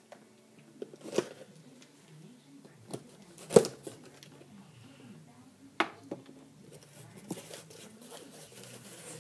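A sealed cardboard case of trading-card boxes being opened: a few sharp knocks and clicks, the loudest about three and a half seconds in, over faint handling noise.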